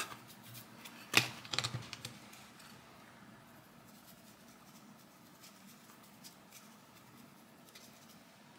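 A few light clicks and taps from a paintbrush and a miniature traction board being handled while dry-brushing, the loudest about a second in, then only faint scratchy ticks.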